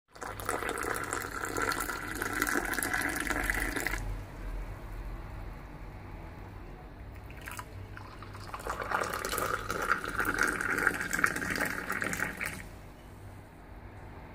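Moroccan tea poured from a teapot into small tea glasses, the stream splashing into the glass in two pours: one lasting about four seconds from the start, then a second from about eight and a half seconds that stops about four seconds later.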